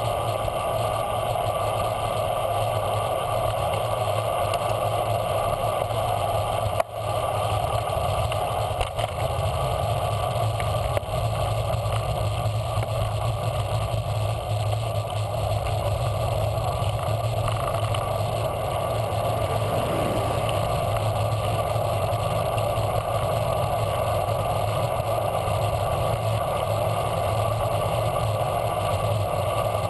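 Steady wind and road rush picked up by a handlebar-mounted camera on a moving bicycle, with one sharp knock about seven seconds in.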